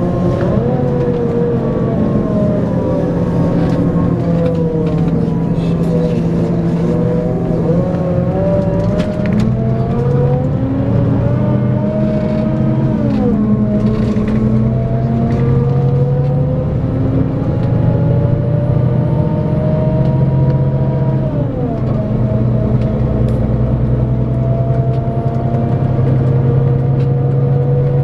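Scania K410EB6 coach's 12.7-litre straight-six diesel pulling under acceleration. The engine note climbs and falls, drops sharply at gear changes about halfway through and again near three-quarters of the way, then climbs steadily again.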